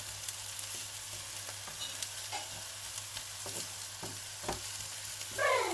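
Steady sizzling hiss of food frying in a pan, with a few soft clinks of dishes being handled about three and a half to four and a half seconds in.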